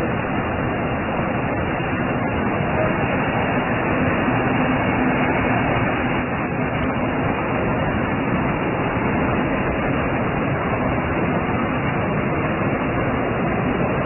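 Steady city street traffic noise, an even wash of sound with no distinct events.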